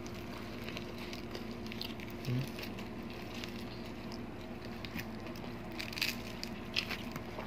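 Soft eating sounds: scattered wet clicks and smacks of chewing and of fingers picking at fried milkfish, most of them in the second half, over a steady low hum. A short closed-mouth 'mm' about two seconds in.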